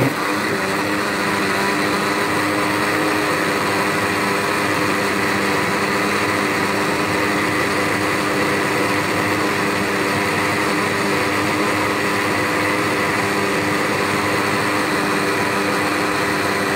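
Electric blender running steadily at full speed, its motor hum with a few constant tones and the swish of a thick milky liquid churning in the jar as bread, milk and ground dry fruit are blended smooth.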